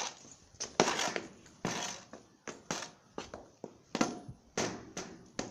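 Something being moved out of the way by hand: a run of irregular knocks and scrapes, about two a second.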